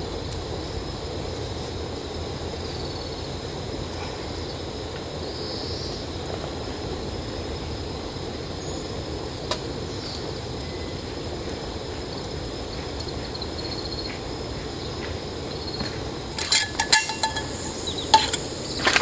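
Steady outdoor background hiss with a faint high chirring now and then. Near the end comes a quick run of sharp clicks and light metallic clinks.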